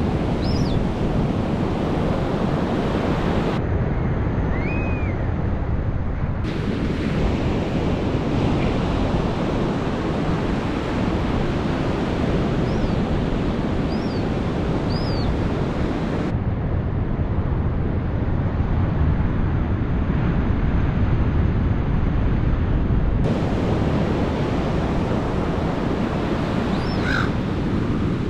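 Ocean surf breaking on a sandy beach: a steady, continuous wash of waves, with a few faint, short, high chirps scattered through it.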